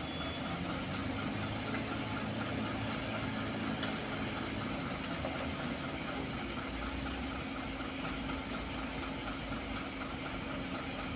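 Heavy diesel engines of a loaded dump truck and a motor grader running steadily at low revs, with no revving, and a faint, even, fast ticking over the hum.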